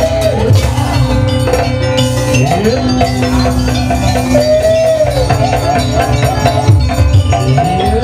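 Live jaranan gamelan ensemble playing: drum beats and gamelan percussion under a wavering, gliding melody line.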